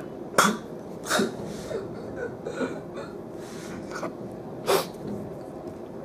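A boy sniffling and sobbing as he pretends to cry, with three sharp sniffs: about half a second in, about a second in, and near the end.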